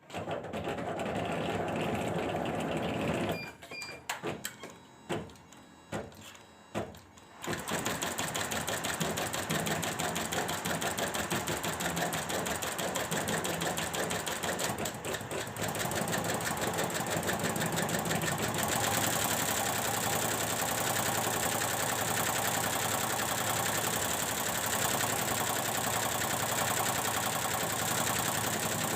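Computerized embroidery machine running: a few separate needle strokes with short pauses, then from about a quarter of the way in a fast, even, continuous stitching rhythm, on a test run after a repair of its drive-unit power supply.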